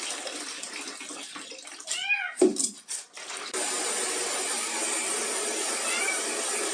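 A cat meowing, two drawn-out calls about two seconds in, then fainter meows later on. About three and a half seconds in, a steady rushing noise starts suddenly and carries on under them.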